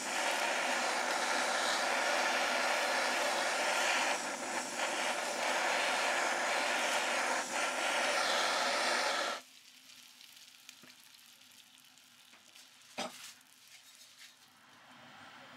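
Kitchen blowtorch flame hissing steadily as it caramelizes the sugar on a crème brûlée, cutting off abruptly about nine seconds in. After it stops, the fresh caramel crackles faintly as it bubbles, with one sharper click near the end.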